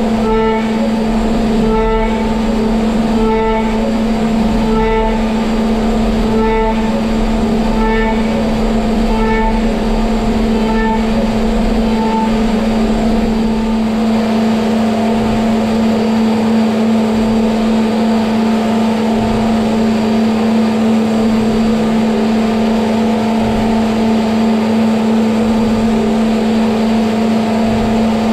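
CNC milling machine's spindle running steadily while an end mill cuts aluminium. For the first half the cutting tone swells about every second and a half as the cutter makes repeated passes, then the cutting goes on evenly.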